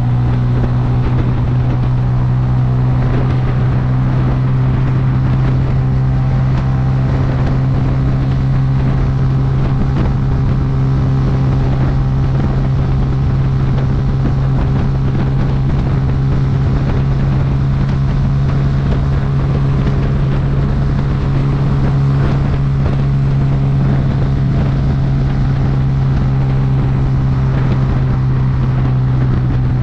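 Bajaj Boxer's single-cylinder four-stroke engine running at a steady cruising speed, holding one constant note, with wind rushing over the microphone.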